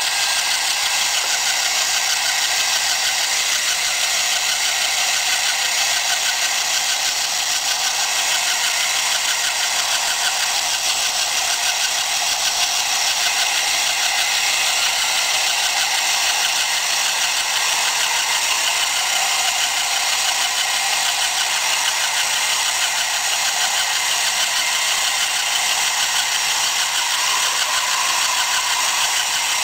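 Small electric gear motor of a homemade chipboard model crawler tractor running steadily, with the rattle of its wooden track shoes as it crawls over stacked boards.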